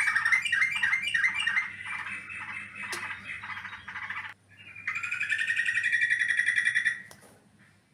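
Yellow-vented bulbul (trucukan) calling: a run of rapid, harsh chattering notes that fade over about four seconds. Then one long buzzy call of about two seconds.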